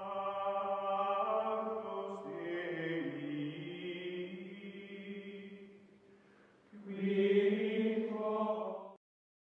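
Choir-like outro music: sustained chanted vocal chords, held notes that shift in pitch in two phrases, the second starting about seven seconds in. It cuts off abruptly about half a second before the end.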